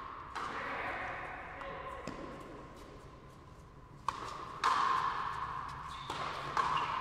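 Frontenis rally: the ball struck by stringed rackets and smacking off the front wall, about six sharp hits, some in quick pairs, each ringing on in the court's echo.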